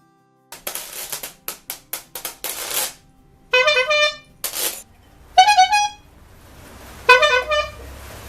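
A percussion washboard scraped in a quick, uneven run of rasping strokes, followed by a horn accessory honking four times in short, bending blasts.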